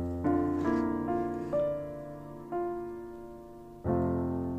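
Background music: piano notes struck one at a time, each ringing and fading before the next.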